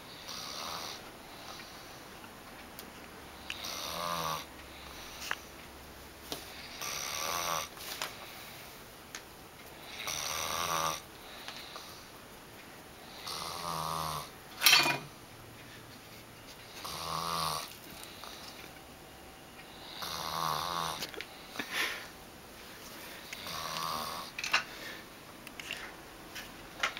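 A sleeping man snoring, about eight snores spaced three to four seconds apart. A brief sharp sound about halfway through is the loudest moment.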